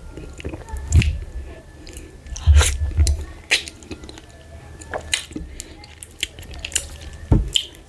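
Close-miked chewing of a meal of oatmeal fufu with ogbono soup, dry catfish and chicken, with irregular wet mouth clicks and a few dull low thumps.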